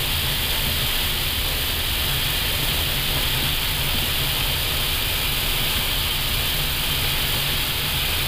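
Steady flight-deck noise of an Airbus A320 taxiing: an even hiss from the air conditioning and avionics ventilation over a low hum from the idling engines.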